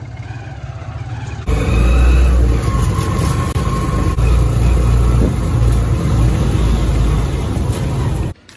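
Motorcycle engine and road noise heard from inside a tricycle's metal sidecar while riding, a steady low rumble. It gets louder suddenly about a second and a half in and cuts off abruptly just before the end.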